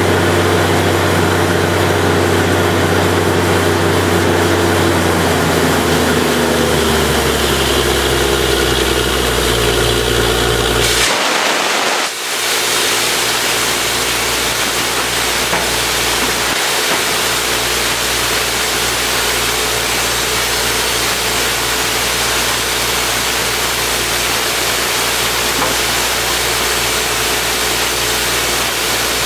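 Truck-mounted borewell drilling rig's engine running steadily, its note stepping lower about six seconds in. About eleven seconds in the engine note breaks off briefly, and a loud, steady rushing hiss takes over for the rest.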